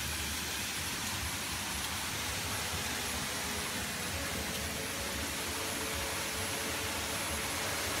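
Steady rushing of a waterfall: an even, unbroken wash of water noise.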